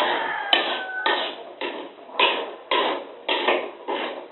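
Metal spatula scraping and knocking against a steel wok while stir-frying, a regular stroke about twice a second as the food is turned over.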